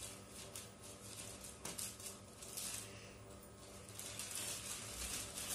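Plastic courier mailer bag crinkling and rustling as it is cut with scissors and pulled open by hand, in irregular bursts over a steady low hum.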